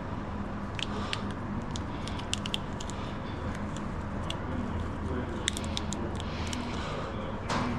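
Scattered light clicks and small rattles of handling, over a steady low hum.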